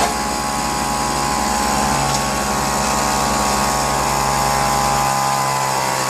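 Stripped two-stroke weed-eater engine converted to an air/steam engine, running on compressed air with a fast, even pulsing beat and a steady hum.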